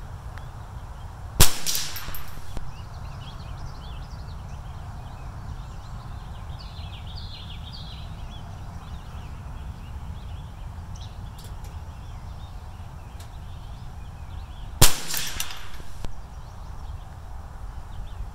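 Two .22 LR rifle shots from a Bear Creek Arsenal 201, about 13 seconds apart. Each is a sharp crack with a short tail of echo, over a steady low rumble.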